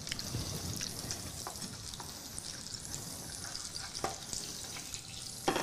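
Pecan-crusted trout fillets frying in a pan: a steady sizzle with fine crackling, and a few light clicks about a second and a half, four and five and a half seconds in.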